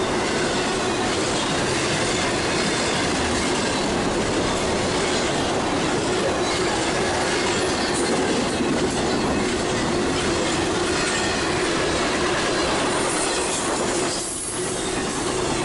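Intermodal freight train of trailer-carrying flatcars rolling past at speed: a loud, steady rumble of steel wheels on rail with a steady whining tone under it. There is a brief dip about fourteen seconds in.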